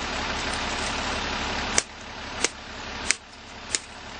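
A 4x4 pickup's engine idling under a steady rush of noise that drops away after about two seconds, followed by a run of sharp clicks, about one every two-thirds of a second.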